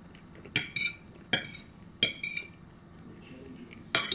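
Metal fork clinking against a plate while cutting into a taco: several sharp clinks, roughly a second apart.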